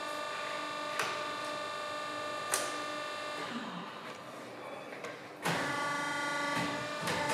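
Tyre changer running with a steady mechanical hum, with sharp clicks about one and two and a half seconds in. The level jumps suddenly with a thump about five and a half seconds in.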